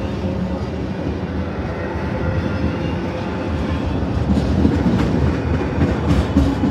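Freight train of autorack cars rolling past close by: a steady rumble of steel wheels on rail, with occasional clicks from wheels over the rail joints, swelling a little in the second half.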